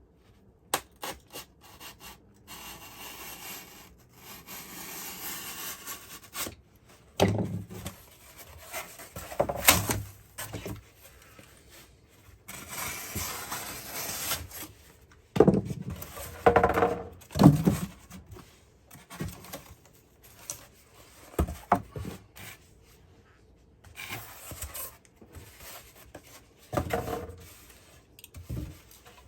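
Insulation being cut by hand: long scraping, rubbing strokes, broken by several loud knocks.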